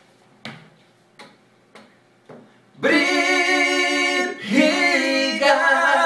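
Two men's voices singing a Portuguese song in close harmony a cappella, on long held notes, starting about three seconds in with a short break a little past four seconds. Before the singing, a few soft taps about every half second.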